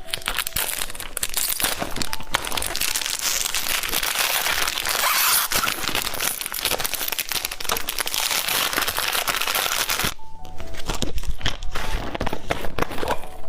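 Plastic candy wrapper crinkling and tearing as a large lollipop is unwrapped, a dense run of crackles that dies away about ten seconds in, with background music underneath.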